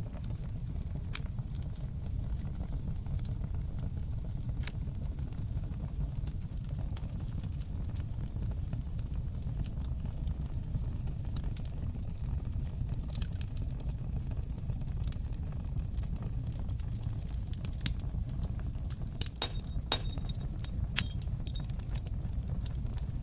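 Fire in a fireplace crackling: a steady low rumble of the flames with scattered sharp pops, which come thicker near the end and include one loud snap.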